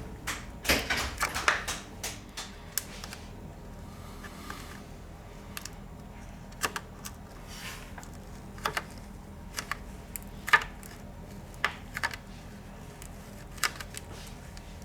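Light, sharp clicks and taps of hard objects being handled, irregularly spaced: a quick cluster near the start, then single clicks every second or two.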